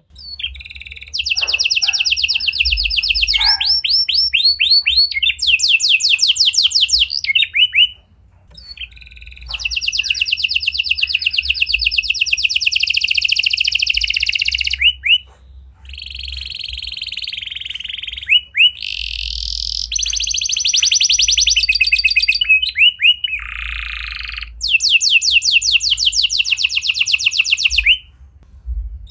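Domestic canary singing: long rolling trills of very fast, high repeated notes, each phrase lasting a few seconds and shifting in pitch and speed, with short breaks between phrases.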